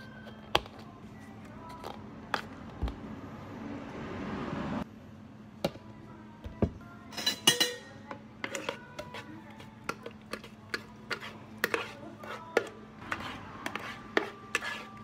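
Plastic cups, dome lids and a blender pitcher being handled on a counter: a dome lid pressed onto a cup, then a quick run of clicks and knocks as blended ice drink is scraped and poured into a cup. A soft hiss builds up and cuts off about five seconds in, over a steady low hum.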